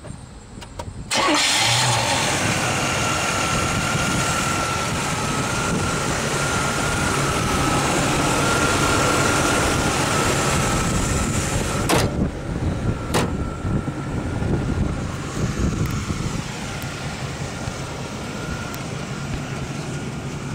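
A 350 V8 starts about a second in and then runs steadily at idle, with a thin, steady high whine over the engine sound. Two sharp clicks come later.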